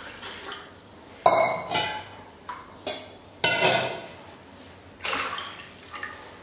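Water poured by the glassful into a stainless-steel pot: several separate splashing pours with clinks of the glass and pot, each starting suddenly and fading out.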